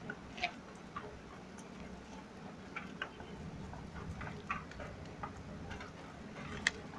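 Rain water dripping, a scatter of irregular small ticks, the sharpest one near the end.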